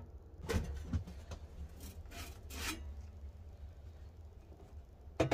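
Stainless steel stovepipe section handled with leather gloves and worked against the pipe fitting at the wall plate: a series of short metallic scrapes and rubs.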